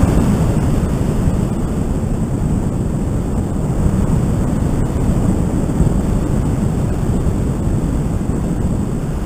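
Airflow of a tandem paraglider in flight buffeting an action camera's microphone on a handheld pole: a steady, dense low rush of wind noise that eases slightly over the seconds.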